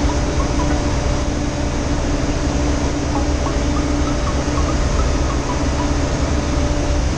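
Ship's engine room machinery running: a loud, steady din with a constant hum, unchanging throughout.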